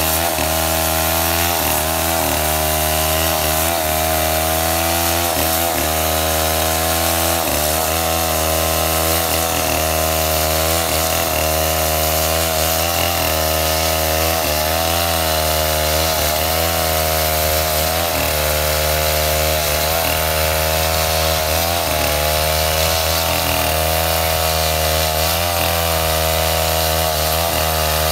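STIHL 070 two-stroke chainsaw running steadily under load as it rips lengthwise through a coconut palm log, its engine pitch wavering slightly as the chain bites.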